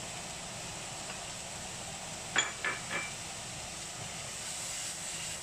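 Mapo tofu sizzling steadily in a frying pan over a gas burner. About halfway through come three quick clinks against the pan, roughly a third of a second apart.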